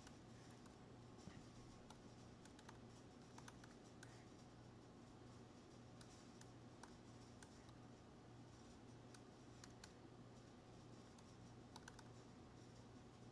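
Faint, slow, irregular computer keyboard keystrokes as a command is typed, over a low steady hum.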